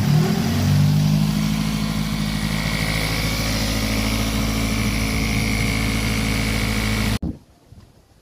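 Toyota 20-valve four-cylinder engine running: the revs lift briefly at the start, then settle to a steady idle. The sound cuts off suddenly about seven seconds in.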